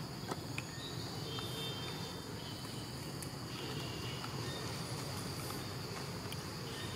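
Steady high-pitched insect drone of a tropical forest, with scattered faint clicks and a few brief faint chirps.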